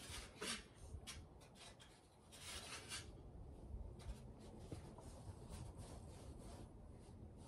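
Faint scraping and crunching in snow, in short scratchy strokes with a longer scrape about two and a half seconds in.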